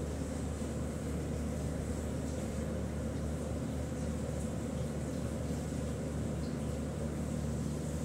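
Steady low hum with a hiss over it, from room machinery running without change.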